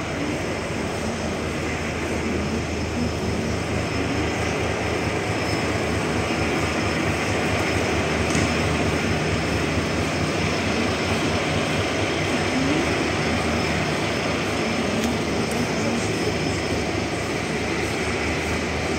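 TEM18V diesel shunting locomotive's engine running steadily with a low drone as it brings a rake of passenger coaches along the platform.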